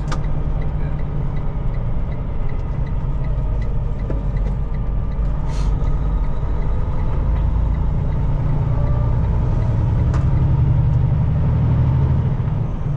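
Steady low rumble of a semi truck's engine and road noise heard inside the cab while driving, growing a little louder in the second half.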